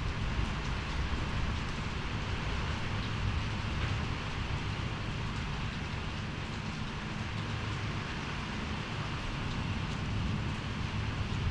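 Storm rain falling steadily, with wind buffeting the microphone as a low rumble under it.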